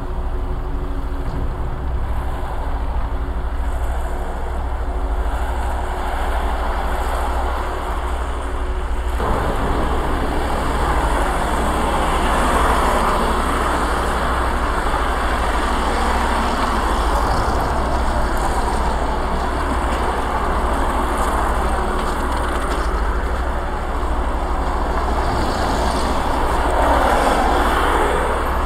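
A dense, steady rumbling noise drone over a constant low hum. It suddenly thickens into a fuller rushing noise about nine seconds in.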